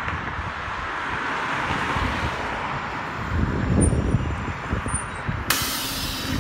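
Transit bus pulling in to a stop: engine and tyre noise swelling as it arrives and slows, then, about five and a half seconds in, a sudden loud hiss of compressed air as the bus comes to a halt.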